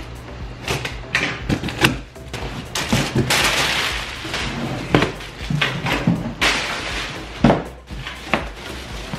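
Cardboard box being opened and unpacked by hand: box flaps knocking, crumpled brown packing paper crackling for a second or two in the middle, then a plastic-wrapped bag rustling, with scattered thumps and clicks.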